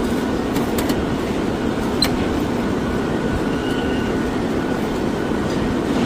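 Steady rumbling clatter of heavy factory machinery, with a few sharp clicks in the first two seconds.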